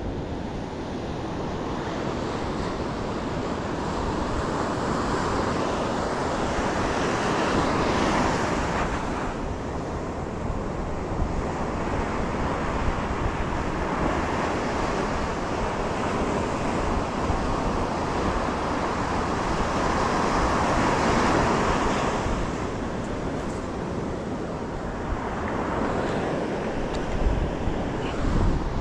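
Ocean surf breaking and washing up a sandy beach, rising and falling in two long swells, with wind buffeting the microphone.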